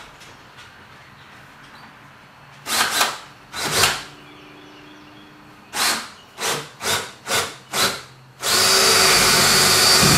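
Cordless drill boring into a wooden upright: two short runs, then five quick trigger blips, then a steady loud run with a constant whine for the last couple of seconds as the bit cuts in.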